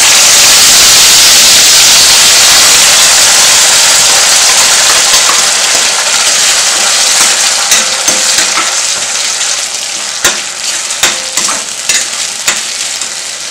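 Ground onion-and-tomato paste sizzling loudly as it hits hot oil and mustard seeds in a stainless steel kadai, the sizzle easing off over the following seconds. From about halfway on, a ladle stirring it scrapes and clicks against the pan.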